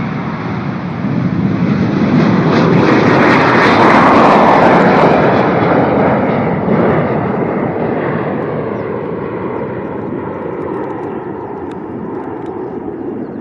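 Jet airliner passing close by, its engine noise swelling to a peak about four seconds in and then slowly fading.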